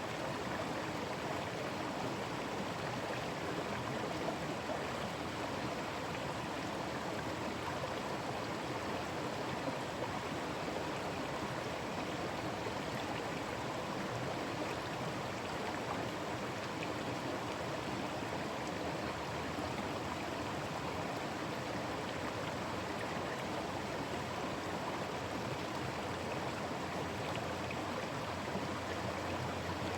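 Forest stream running over rocks: a steady, even rush and babble of water with no change throughout.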